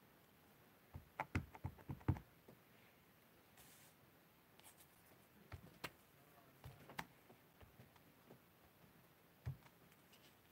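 Faint, scattered taps and clicks of a clear acrylic stamping block and cardstock pieces being handled and pressed down on a craft mat: a quick cluster about a second in, a few more around six to seven seconds, and a last tap near the end.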